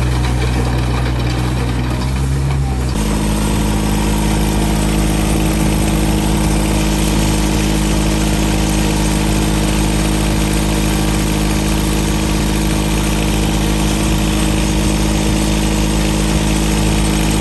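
Komatsu PC20MR-1 mini excavator's engine running steadily. Its note changes abruptly about three seconds in, then holds steady again.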